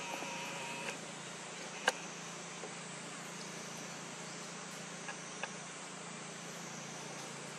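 Steady outdoor insect drone, high and even, over a low steady hum. A short high tone sounds in the first second, then a single sharp click about two seconds in and two faint ticks around the five-second mark.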